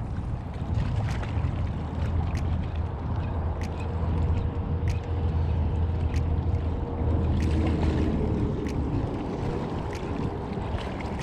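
Steady low rumble of wind and choppy bay water on a shore-side action-camera microphone, with light ticks about once a second and a faint hum that slides lower near the end.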